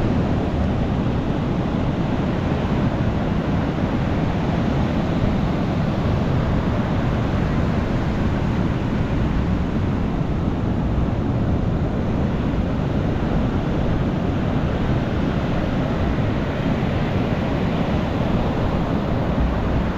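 Ocean surf on a beach: a steady, deep rush of breaking waves with no single crash standing out.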